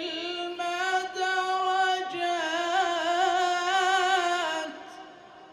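A man's voice reciting the Quran in melodic tajweed style, holding long, ornamented, wavering notes on one drawn-out phrase. The voice stops about four and a half seconds in, leaving a short echo.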